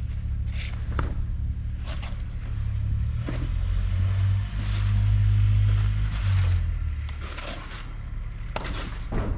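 A motor vehicle's engine rumbling, swelling to its loudest about four to six seconds in and then fading, with scattered short crunches and scrapes.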